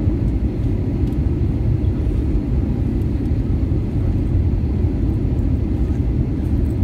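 Steady low rumble of engine and airflow noise inside an Airbus A320 cabin during the descent on final approach.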